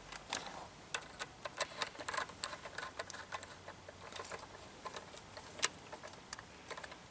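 Small, irregular clicks and ticks of a screwdriver turning a terminal screw on a car-audio capacitor, clamping the ground cable tight.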